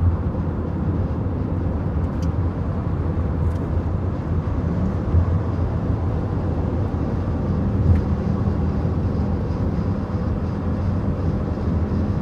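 Car driving along the road: a steady low rumble of road and engine noise, with a faint steady hum joining about halfway through.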